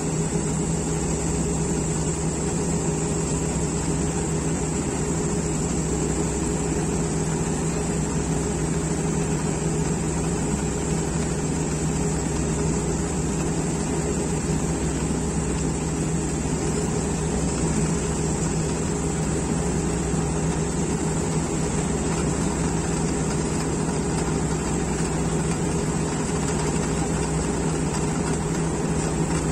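Steady, unchanging drone of diesel farm machinery: a combine harvester running while its auger unloads soybean grain into a trolley, with a tractor alongside.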